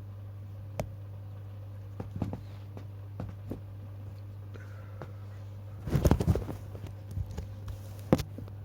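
A steady low hum, with scattered small clicks and knocks, a short cluster of knocks and rustling about six seconds in, and a sharp click near the end.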